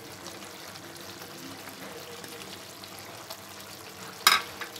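Beef and cauliflower curry simmering in a frying pan, a steady sizzle from the gravy. One sharp click about four seconds in.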